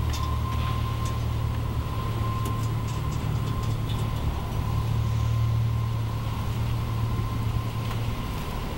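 Steady low rumble of running machinery, with a faint steady high whine over it and a few light ticks.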